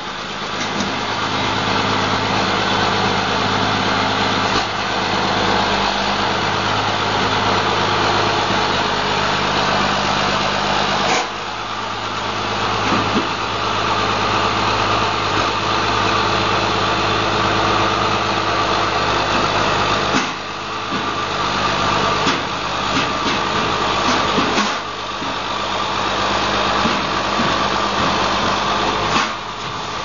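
Case IH 9250 four-wheel-drive tractor's diesel engine running at low speed as the tractor climbs the ramps onto a lowboy trailer. Its sound dips briefly a few times.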